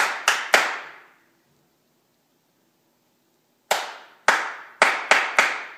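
Hand claps: three quick claps, a pause of about two and a half seconds, then five more claps, sharp and slightly echoing. They are meant as the command for a clap-activated garage door opener.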